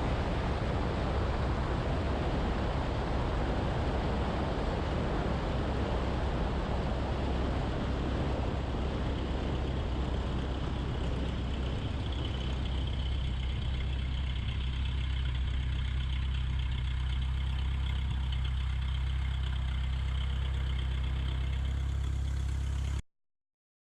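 Light training airplane's piston engine and propeller running steadily, a constant low drone, until it cuts off suddenly near the end.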